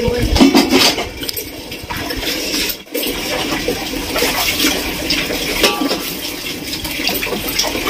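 Close-up eating sounds: wet chewing and lip smacks along with hands squishing and mixing biryani rice. It is a dense run of small wet clicks, broken briefly about three seconds in.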